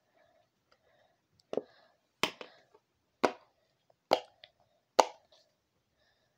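Simple dimple fidget toy being pressed, its silicone bubbles popping with sharp clicks, five pops about a second apart.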